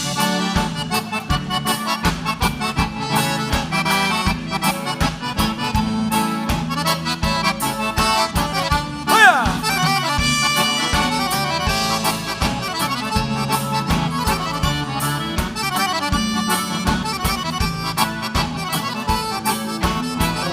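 Live accordion-led gaúcho dance music, an instrumental break with a steady pulsing bass beat. About nine seconds in, a brief shouted call rises over the band.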